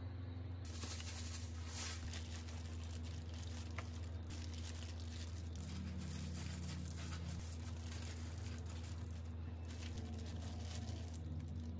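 Crinkling and rustling of a thin plastic food-prep glove and dry breadcrumbs as egg-dipped, bread-wrapped sausages are pressed into the crumbs, over a steady low hum.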